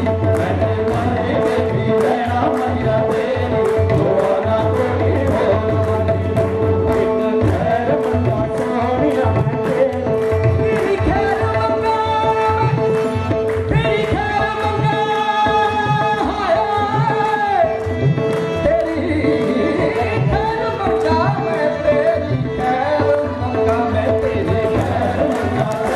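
Live qawwali music: a harmonium holds steady notes under a fast drum beat and hand-clapping, with a singer's long held phrases through the middle.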